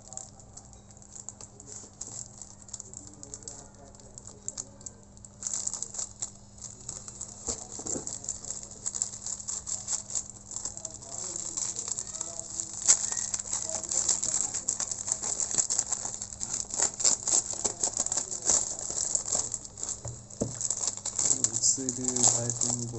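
A clear plastic packaging bag crinkling and crackling as hands handle it and pull at it, with occasional light knocks against cardboard. It starts about five seconds in and keeps up as a dense run of small crackles.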